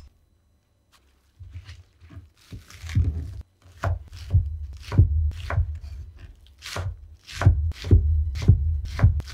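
Kitchen knife chopping green onions on a wooden cutting board: crisp cuts, each ending in a knock on the board, about two a second, starting after a quiet first second or so.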